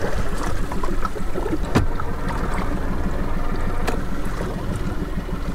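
Small tiller outboard motor running steadily at low trolling speed, with two sharp knocks in the aluminum boat about two and four seconds in.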